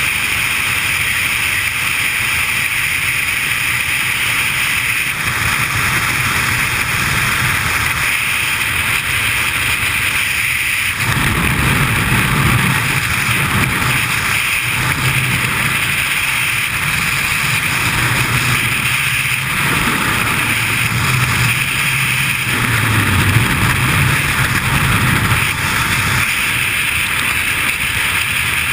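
Steady rush of wind over the camera's microphone during skydiving freefall. About eleven seconds in, a deeper, uneven buffeting joins the hiss.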